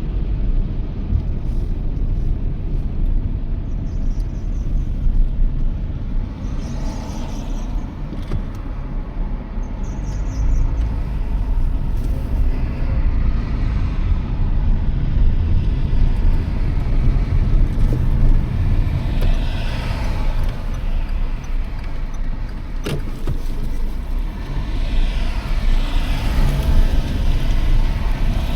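Toyota Yaris driving at speed at night, a steady low rumble of road and engine noise. Twice, a sound swells and fades, like other vehicles passing, and there is one sharp click about two-thirds of the way through.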